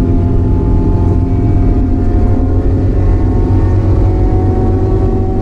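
Chevrolet Cruze touring car's engine running under racing load, heard from inside the cabin: a loud, steady engine note that holds an even pitch.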